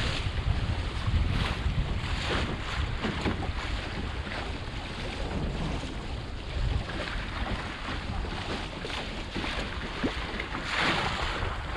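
Wind buffeting the microphone over water splashing and sloshing against the hull of a small wooden sailboat under sail.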